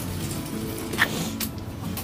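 Background music, with one short, sharp, high-pitched sound about a second in.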